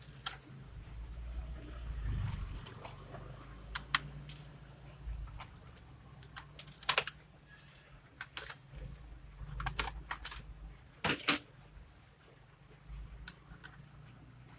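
Scattered clicks, taps and light clatter of a Lenovo G470 laptop's small plastic and metal parts being handled and set down during disassembly, with the loudest clatter about eleven seconds in.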